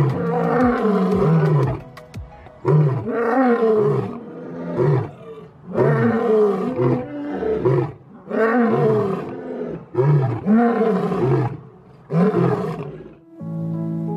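Male lion roaring: a series of about nine roars, each around a second long, coming every one to two seconds. The roaring stops about a second before the end, when music comes in.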